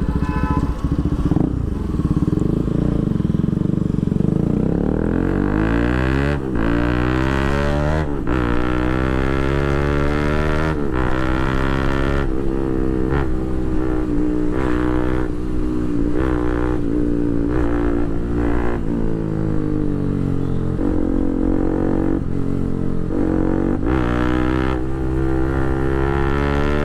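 Bajaj Pulsar RS200's single-cylinder engine through a full titanium Akrapovic exhaust with the dB killer removed, accelerating and shifting up through the gears. The pitch climbs and drops back again and again.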